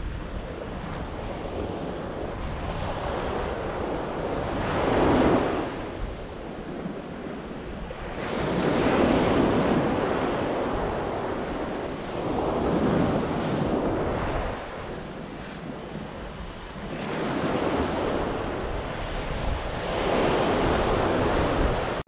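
Sea waves breaking and washing up on a sandy beach, swelling in surges every few seconds, about five times, with wind rumbling on the microphone.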